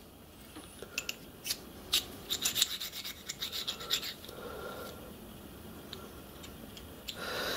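Small steel parts of a model steam locomotive's crosshead and slide bar clicking and scraping against each other as they are handled, with a run of sharp clicks between about one and four seconds in, then quieter handling.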